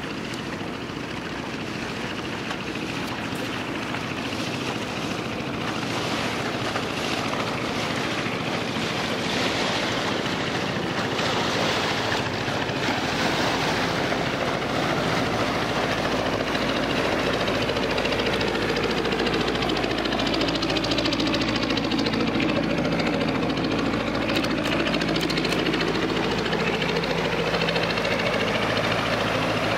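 Training ship Yuge Maru passing close: a steady low engine drone with rushing water noise, growing gradually louder as the ship comes nearer.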